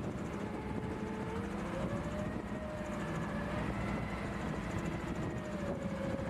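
Machinery running steadily, a constant hum with a tone that drifts slowly up and down in pitch.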